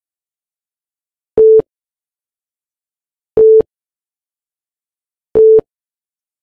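Countdown-timer beeps: three short, single-pitched beeps two seconds apart, with dead silence between them.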